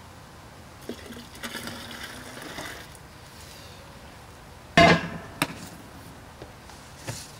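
Boiled mash-out water pouring from a stainless steel brew kettle into a cooler mash tun for about two seconds. A loud metallic clank with brief ringing follows as the kettle is set back down on its burner stand, then a couple of lighter knocks.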